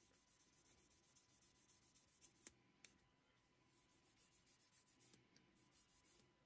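Faint quick rubbing strokes, about seven a second, of a buffing stick worked back and forth over a plastic model-kit wing, pausing briefly about halfway. The fine buffing is smoothing out scoring marks left by coarser sanding grits.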